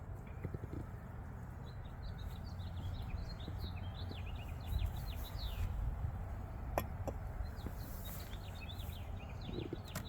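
Small birds chirping in quick, repeated twittering notes over a low steady rumble, with one sharp click about two-thirds of the way through.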